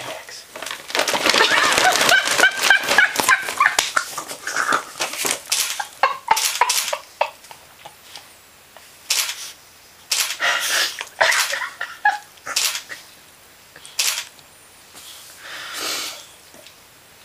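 A dog food bag crinkling and rustling in bursts as a Maltese dog rummages inside it after the kibble. The longest, densest stretch of crackling comes in the first few seconds, then shorter bursts with pauses between.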